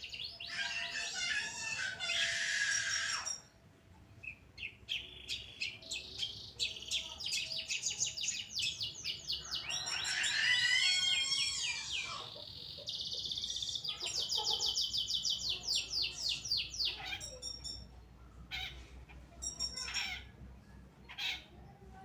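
Long-tailed shrike (cendet) singing a fast, varied song of rapid chattering note runs and trills, phrase after phrase with short pauses.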